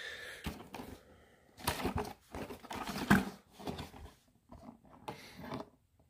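Handling noise: a string of short, uneven rustling and knocking sounds with gaps between them.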